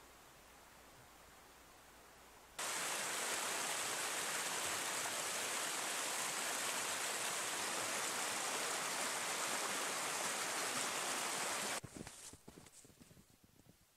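Shallow river rushing over rocks in rapids: a steady, loud rush of water that cuts in about two and a half seconds in and cuts off suddenly near the end, leaving only faint crackles.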